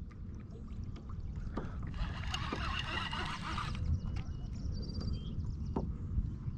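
Wind buffeting the microphone and water slapping the kayak hull, heard as a steady low rumble. About two seconds in, a buzzy, honk-like sound rises over it and lasts under two seconds.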